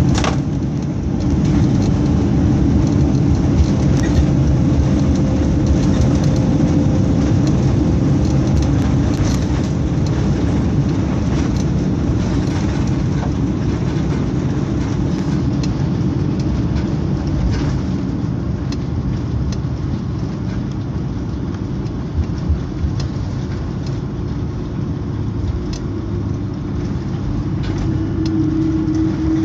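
Airbus A330 cabin noise heard from inside the cabin during the landing roll-out: the jet engines run at low power over the rumble of the wheels on the runway. The noise eases slightly partway through, then rises again near the end, where a steady tone comes in.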